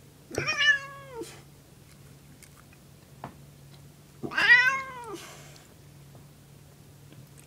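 Domestic cat meowing twice, about four seconds apart, each a drawn-out call that rises and then falls in pitch. A single light click comes between the two meows.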